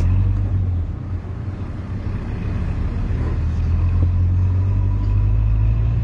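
Motor vehicle running, a steady low rumble of engine and road noise as heard from inside the cab.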